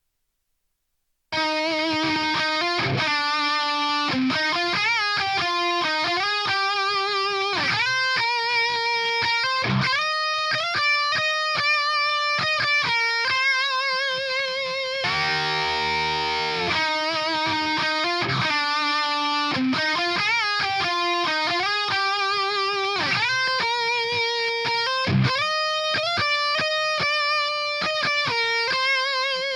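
Distorted electric guitar played through the Audio Assault Bulldozer amp-simulator plugin: a lead line with string bends and vibrato, broken midway by a short low chugging rhythm passage. It starts suddenly about a second in.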